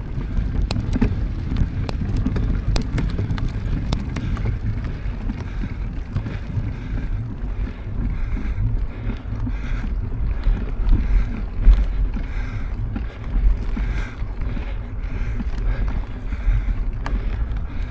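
Wind rumbling over the microphone during a mountain bike ride, with sharp clicks and rattles from the bike on the trail, mostly in the first few seconds and once near the end.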